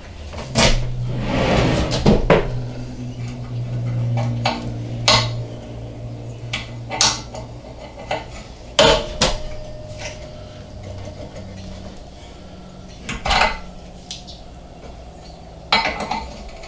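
Metal parts clanking and knocking against a steel plate as a piece is set in place and clamped for drilling: a dozen or so separate knocks, with a low steady hum through the first few seconds.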